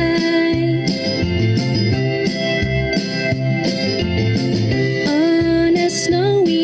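Children's song music: a keyboard melody over bass and a steady drum beat, with no words.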